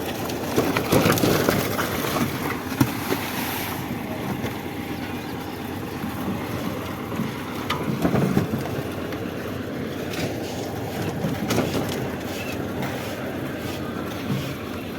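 Concrete mixer machine running, a steady mechanical noise with a few louder, irregular surges and knocks.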